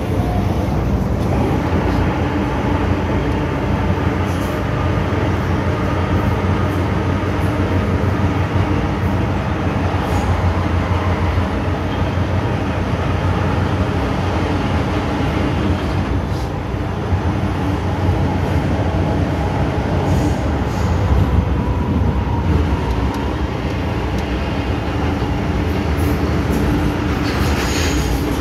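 Cabin noise of an MTR M-Train running at speed through a tunnel. Wheels rumble steadily on the rails, and a faint steady whine from the drive sits above the rumble.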